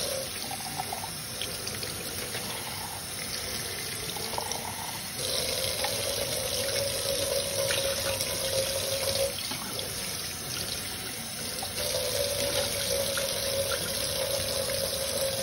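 Cold water running from a kitchen faucet into a stainless steel sink, the stream splashing on a small metal pail held under it. It grows louder about five seconds in and again near the end, with a steady tone during those louder stretches.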